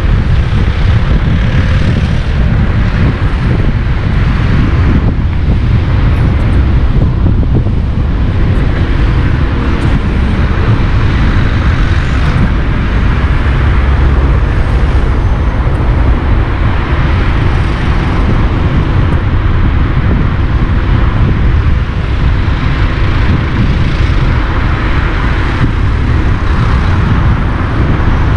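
Steady, loud rumble and hiss of a car driving through town streets: road and tyre noise with engine drone, level and unbroken throughout.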